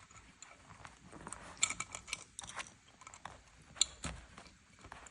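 Small clicks and rattles of speaker cable plugs being handled and pushed into a small amplifier's terminals, in irregular bunches.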